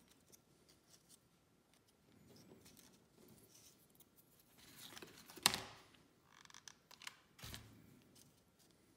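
Thin cardboard being worked by hand: small clicks of handling, then a few short rasps, the loudest about halfway through and another sharp one near the end.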